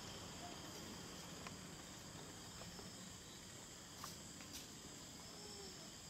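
Crickets and other night insects chirring steadily, with a couple of faint clicks about four seconds in.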